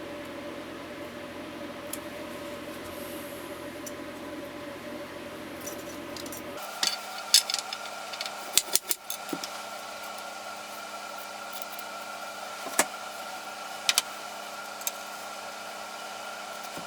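Sharp clicks and clinks of small hard parts being handled, a quick cluster of them about seven to nine seconds in and a few single clicks later, over a steady hum.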